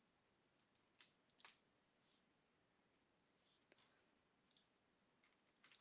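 Near silence broken by a few faint, scattered clicks from computer use, about five in all.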